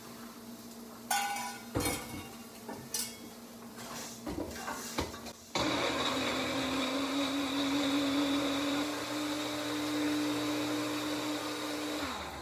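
A few knocks and clatter of kitchenware, then about halfway through an electric blender switches on. It runs steadily for about six seconds, its motor pitch rising a little at first, and winds down just before the end. It is grinding tomatillo and chiles for a salsa.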